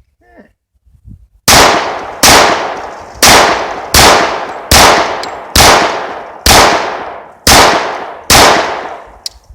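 Nine pistol shots from a Para-Ordnance compensated pistol, fired at a steady pace of about one a second, each with a sharp crack and a long ringing echo, starting about a second and a half in. A small metallic click follows the last shot.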